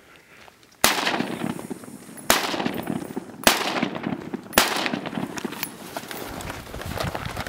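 Four gunshots fired one after another, a bit over a second apart, each a sharp crack that trails off, with a rough, noisy rumble carrying on between and after the shots.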